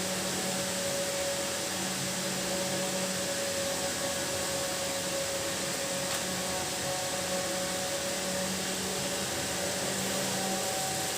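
A steady mechanical hum and hiss, unchanging throughout.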